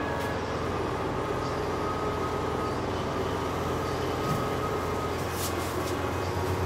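Steady machine hum and hiss of running workshop equipment, with a few faint light clicks a little over five seconds in as metal tweezers work at the watch's internals.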